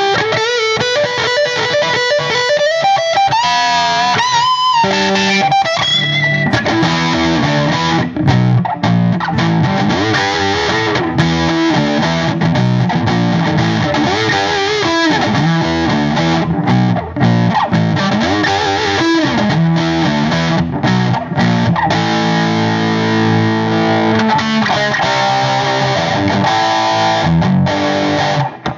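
1962 Gibson Les Paul (SG-style) electric guitar played through a Cornford Roadhouse 50 valve amp and 4x12 cabinet. It opens with held single notes with wide vibrato and a string bend rising about four seconds in, then moves into chords and riffs.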